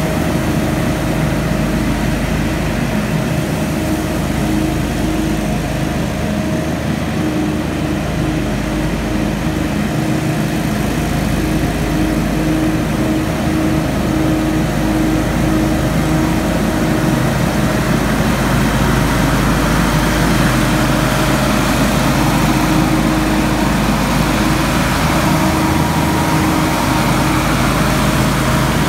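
Hurricane X3 stand-on leaf blower running steadily, its engine hum with a strong rush of air blowing leaves. The rush grows louder in the second half.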